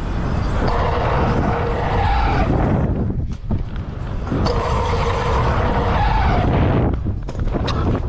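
Mountain bike tyres rolling fast over a packed-dirt track, with wind rushing over the helmet camera's microphone. The noise drops out briefly twice, about three and seven seconds in, with a few sharp clicks.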